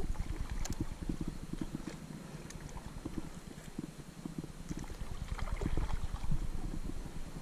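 Kayak being paddled through shallow, weedy water: irregular paddle splashes and water swishing, quieter in the middle and picking up again near the end.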